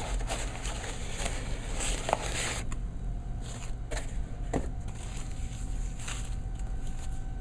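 Packaging being handled and unwrapped: crinkling, rustling wrapping material with a few light clicks and knocks.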